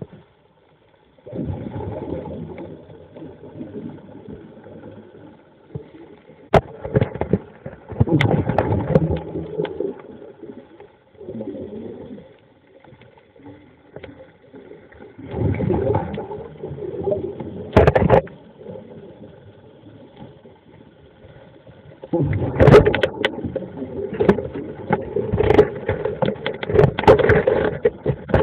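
Muffled underwater water noise: irregular surges of bubbling and rushing water against an underwater camera, with a couple of sharp knocks about 6 seconds and 18 seconds in.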